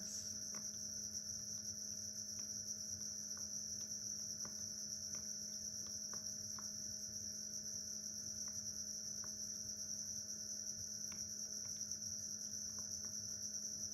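Steady chorus of crickets, a night-time nature ambience, with faint scattered clicks.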